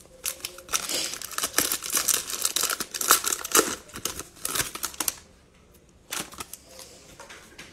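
Foil trading-card pack being torn open and crinkled by hand: a dense crackle of foil for about five seconds, then a shorter rustle about a second later.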